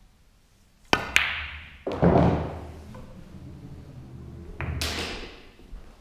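A pool shot: two sharp clicks about a second in as the cue tip strikes the cue ball and the cue ball hits the object ball, then a heavier thud and the low rumble of balls rolling on the cloth, and another knock near the end.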